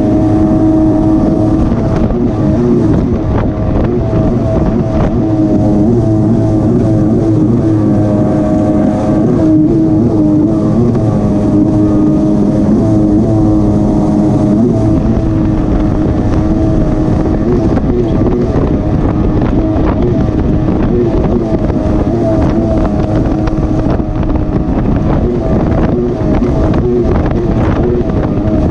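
Polaris personal watercraft engine running at high, steady throttle, its pitch wavering slightly up and down, over a rush of wind and water.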